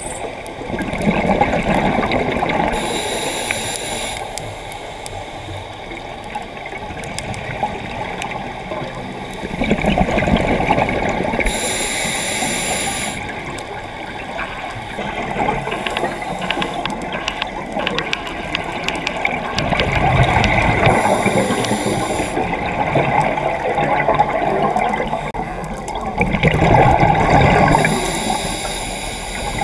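Scuba regulator breathing heard underwater: a short hiss of each inhalation and a loud gurgling rush of exhaled bubbles. There are about four breaths, spaced eight to nine seconds apart.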